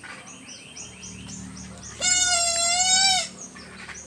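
A loud, drawn-out animal call lasting just over a second, starting about two seconds in, over faint short high chirps repeating throughout.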